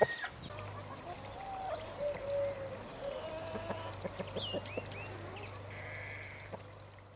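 Chickens calling with gliding clucks, while wild birds chirp and sing high above them, over a steady low hum; it all fades out near the end.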